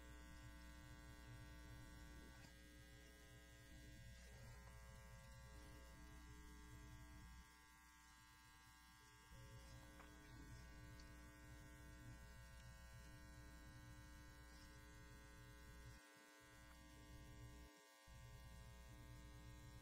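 Near silence: a faint, steady electrical hum-buzz of room tone. Its low part dips briefly about a third of the way in and drops out twice near the end.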